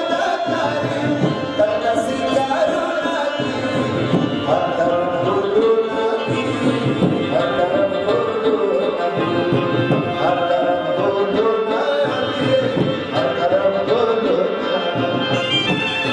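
Singing with rhythmic drum accompaniment, over a steady held note.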